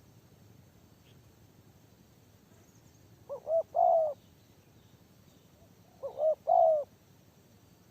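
Spotted dove cooing: two phrases about three seconds apart, each two short notes followed by a longer third note.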